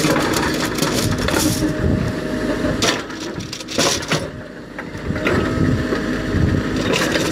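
Steel rebar clanking and scraping over gravel as a JCB 3CX backhoe loader's bucket pushes the bundles apart, with the machine's engine and hydraulics running underneath. Sharp metallic clatters come in clusters, the loudest about one and a half, three and four seconds in.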